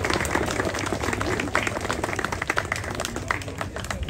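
A crowd applauding, many hands clapping at once, thinning out near the end.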